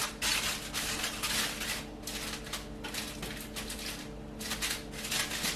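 Aluminium foil crinkling and rustling in irregular bursts as it is pressed over a baking dish, over a faint steady hum.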